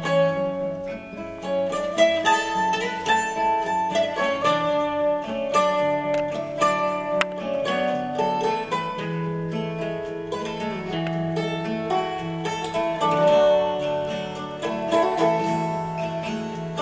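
Background music played on plucked strings, a steady run of picked notes over a held low bass.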